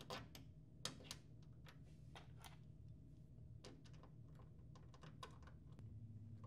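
Faint scattered clicks and taps of a cable connector being handled and plugged into a port on the back of a printer finisher.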